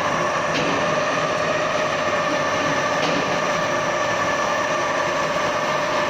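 CNC lathe running: a steady machine hum with a whine that holds one pitch throughout. Two faint ticks come about half a second in and about three seconds in.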